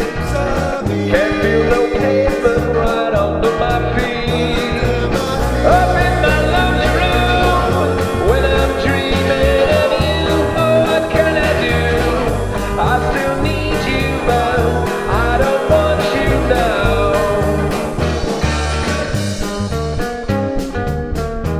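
A rock-and-roll band playing a song: lead and harmony vocals over strummed acoustic guitar, electric guitar, bass guitar and a steady drum beat.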